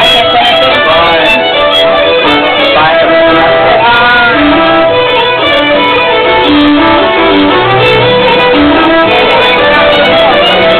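Traditional Irish tune played live on fiddle, a fast run of notes over a steady accompaniment, with pub chatter underneath.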